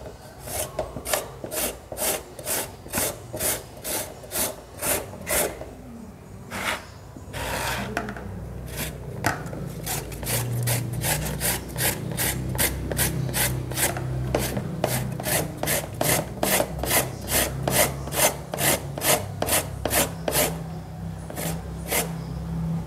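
Raw green papaya being shredded on a sharp hand-held shredder: quick, even rasping strokes, about three a second, with a short break about six seconds in.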